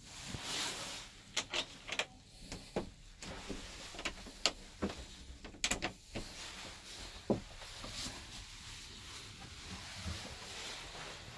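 A series of short, sharp clicks and knocks, about a dozen scattered through the first eight seconds, over a faint steady hiss.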